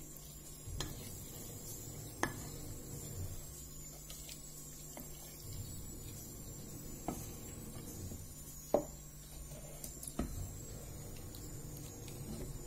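Wooden spoon stirring mashed watermelon in a glass jar, with about five sharp knocks of the spoon against the glass, the loudest about two-thirds through. A faint steady low hum runs underneath.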